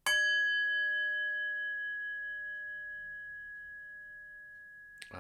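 A meditation bell struck once and left to ring, a clear high tone that fades slowly over several seconds. It is a mindfulness bell marking the start of a meditation sit.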